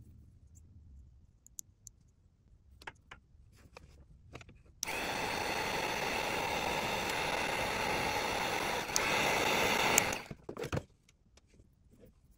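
Heat gun blowing steadily for about five seconds while it shrinks heat-shrink tubing onto the end of a stripped wire. It starts about five seconds in, gets a little louder in its last second, then cuts off suddenly. Before it, a few faint handling clicks.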